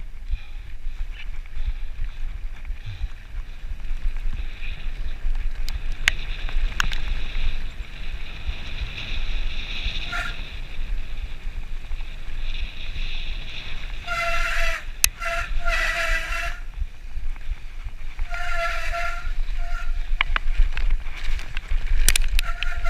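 Mountain bike rolling down a rough, muddy dirt trail: a steady low rumble of tyres and frame, with sharp rattling clicks from the bike. A little past the middle a high-pitched squeal breaks in, in short bouts: the mud-caked disc brakes squealing as they are applied.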